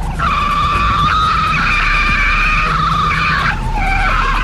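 Police-radio recording of a very high-pitched, squealing scream, said to be the call of a Sasquatch. One long wavering squeal of about three and a half seconds, then a shorter one near the end, over a steady low hum.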